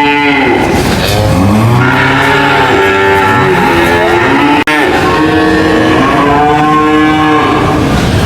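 Cattle mooing: two long, loud moos, the second coming after an abrupt cut a little past halfway.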